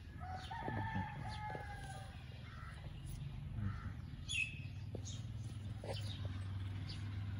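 A rooster crows once near the start: one long call lasting about a second and a half. Small birds chirp briefly a few times after it.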